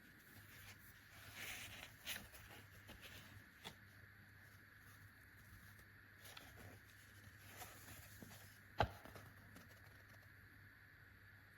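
Faint handling sounds of the compressor and its storage pouch: soft rustling and light clicks, with one sharper click about 9 seconds in.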